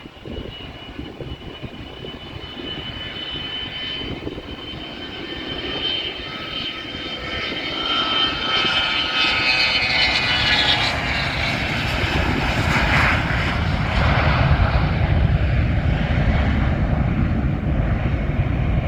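Bombardier Global 5000 business jet's two Rolls-Royce BR710 turbofans at takeoff thrust: a high whining buzz that grows louder over the first eight seconds and drops in pitch, giving way to a steady loud roar.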